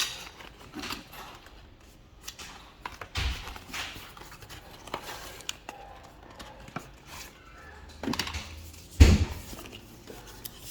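Cardboard and plastic packaging being handled and opened: scattered rustles and clicks, with a dull thump about three seconds in and a louder one about nine seconds in.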